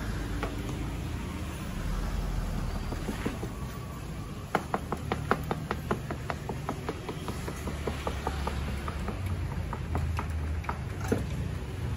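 A quick run of sharp metal taps, about four or five a second, that thins out to scattered taps: cooks' utensils working dough at a Thai donut (patongko) stall, with a steady low rumble underneath.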